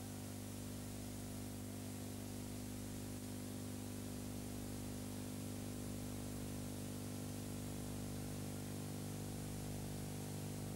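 Steady, faint electrical hum with a stack of even overtones over a light hiss: an empty audio track with only line noise, and no applause heard.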